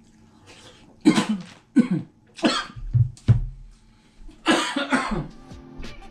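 A man coughing hard in a run of short, loud coughs over several seconds, just after taking a mouthful of food.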